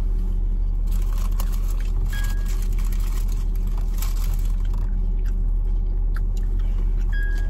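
Steady low hum of a car's engine and cabin, with scattered crunching and chewing of food close to the microphone. A short high beep sounds twice, about two seconds in and near the end.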